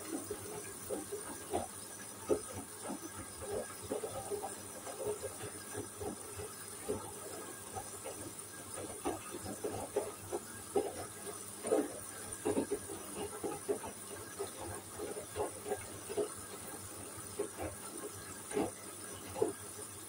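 Hoover front-loading washing machine drum tumbling wet laundry through water: irregular sloshing and splashing as the clothes lift and drop, over a steady faint hiss.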